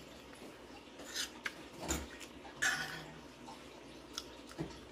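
A person eating close to the microphone: a few short wet mouth sounds, one about a second in, one about two seconds in and a louder one near three seconds, then a couple of light clicks of cutlery near the end.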